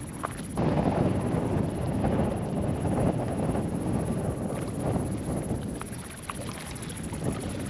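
Wind buffeting the microphone: a loud low rumble that comes up sharply about half a second in and gusts unevenly, with a few faint ticks over it.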